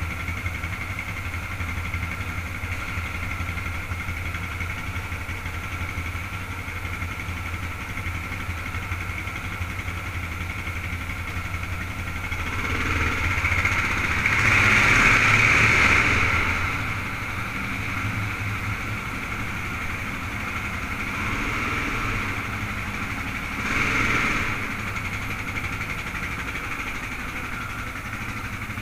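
The single-cylinder engine of a 1989 Yamaha XT600Z Ténéré runs steadily at low speed. It grows louder for a few seconds around the middle and briefly again near the end.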